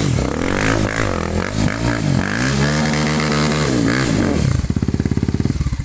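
Single-cylinder four-stroke 250 cc trail motorcycle engine revving up and down in repeated blips of the throttle. About four and a half seconds in it drops to a low, evenly pulsing idle.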